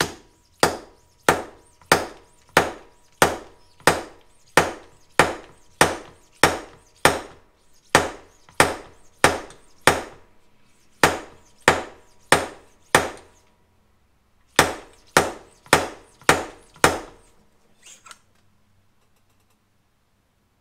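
A seal driver slid along a Harley-Davidson Sportster fork tube is hammered down to drive a new fork seal into the slider. Sharp knocks come about every 0.6 s in three runs, with short pauses about 10 and 14 seconds in, and stop about 17 seconds in.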